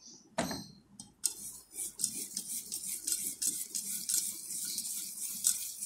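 Wire whisk beating thick besan batter in a bowl: a single knock, then from about a second in a rapid, steady rhythm of wet slapping and the wires scraping against the bowl.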